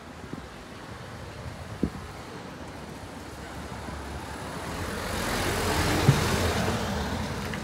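Street traffic noise with a vehicle passing, swelling and fading about five to seven seconds in. A couple of short sharp knocks come at about two and six seconds.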